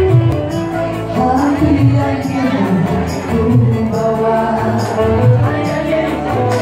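Live band music: a woman singing into a microphone over an electronic keyboard and saxophone, with a steady percussion beat.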